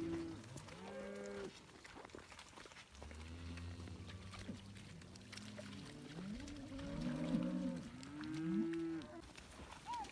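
Several cows mooing: long drawn-out calls at different pitches, overlapping one another, with a deep low one about three seconds in and more calls near the end.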